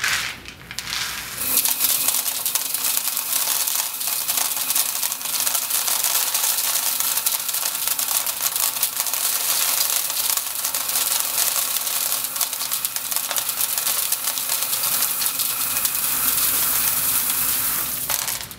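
Dried corn kernels pouring into a clear-walled silo and piling up: a steady, dense rattle of many small clicks as kernels strike the wall and each other. It starts about a second and a half in and stops just before the end.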